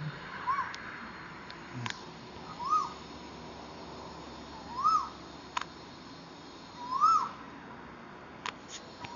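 Asian koel calling: a repeated two-part "koo-oo" note, rising then falling in pitch, four times about two seconds apart and getting louder each time. A few faint sharp clicks sound between the calls.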